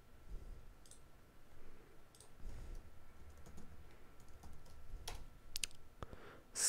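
Faint computer mouse clicks and keyboard keystrokes: a few separate clicks, then a quicker run of clicks near the end.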